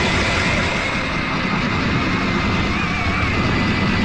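A powered ice auger drilling a hole through river ice, its motor running steadily under load with a wavering high whine.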